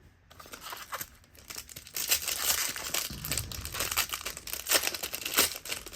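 Foil wrapper of a sports card pack crinkling and tearing as it is ripped open, a dense run of sharp crackles that grows louder about two seconds in.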